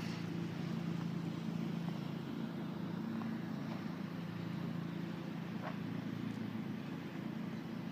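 A steady low mechanical hum made of a few even tones, like a running motor, with a faint hiss over it and a couple of faint ticks.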